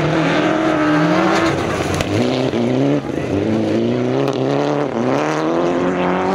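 Autocross race cars' engines revving hard on a dirt circuit. The pitch climbs and drops back sharply several times as the drivers change gear, with more than one engine heard at once.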